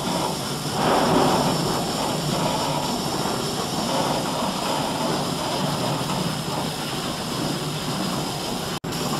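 Fiber laser marking machine running as it marks a board: a steady rushing noise that cuts out for an instant near the end.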